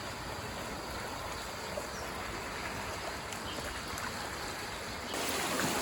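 Floodwater flowing fast over a road in a steady rush, growing louder about five seconds in.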